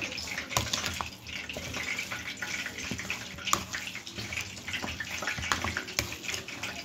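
A metal spoon mashing and stirring raw spiced beef mince with ginger-garlic paste in a bowl: a wet, squelching noise with a few sharp clicks of the spoon against the bowl.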